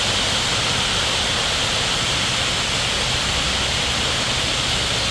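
Waterfall's falling water: a steady, even rush of noise with no breaks.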